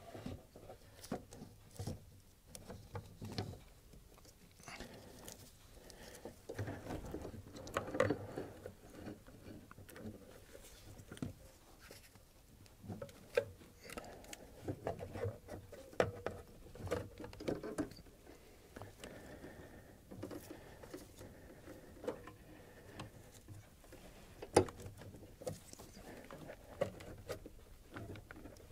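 Irregular clicks, small knocks and rustling as the ABS pump unit is handled and worked into place among brackets and wiring in the engine bay, with one sharper knock late on.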